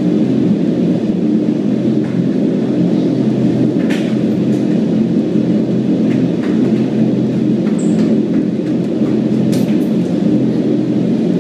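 Vertical wind tunnel for indoor skydiving running at flying speed: a loud, steady rush of air with a low fan hum underneath.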